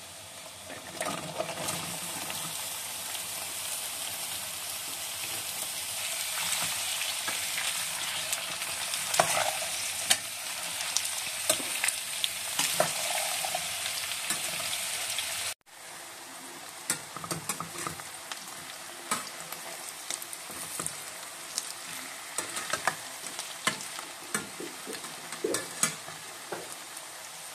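Sliced carrots and onions sizzling in hot oil in a kadai, stirred with a metal slotted spoon that clicks and scrapes against the pan. About halfway through there is a brief break, after which the sizzle is quieter and the spoon's clicks stand out more.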